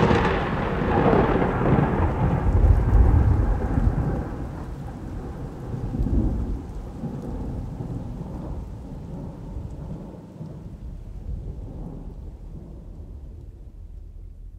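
Thunder: a clap at the very start rolls into a long low rumble that dies away over about ten seconds. Rain falls under it.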